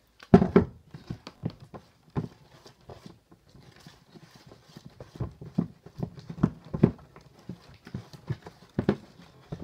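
A plastic bottle set down on a table with a hard knock, then slime being stirred in a plastic tub, with irregular knocks and taps against the container as the activator is mixed into the glue.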